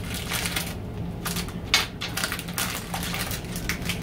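Plastic candy packaging crinkling and crackling in quick, irregular bursts as it is handled.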